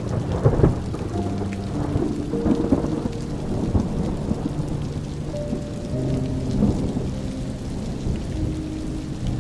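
Steady rain falling with thunder rumbling, loudest around the start, under a music track of sustained notes that change about every second.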